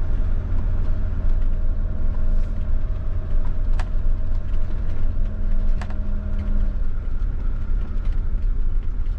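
Fiat Ducato-based motorhome's diesel engine running with a steady low rumble, heard from inside the cab, with two sharp clicks about four and six seconds in.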